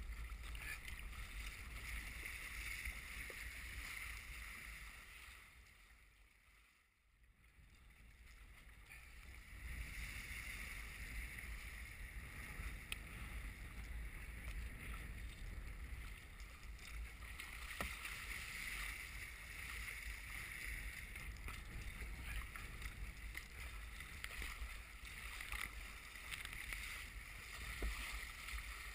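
Wind buffeting the camera microphone over steady splashing and rushing of choppy waves against a sea kayak's hull and paddle. The sound fades out almost completely about a quarter of the way through and comes back a few seconds later.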